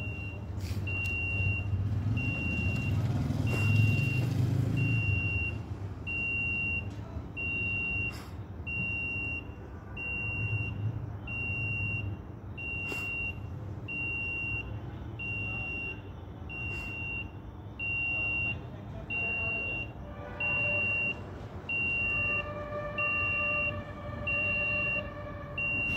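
Electrofusion welding machine beeping steadily, about once a second, while its fusion cycle runs on an electrofusion coupler joining HDPE pipe. From about twenty seconds in, a steady multi-tone hum joins the beeps.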